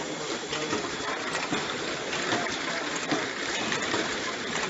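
Steady running noise of an automatic bottling line for granular tea: a continuous hiss with many small clicks and knocks from the jar-handling and capping machinery.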